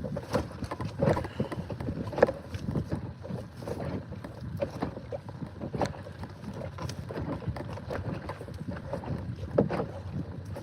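Irregular knocks and clatter of handling aboard a fishing kayak while a netted fish is dealt with, with sharper knocks about two, six and nine and a half seconds in.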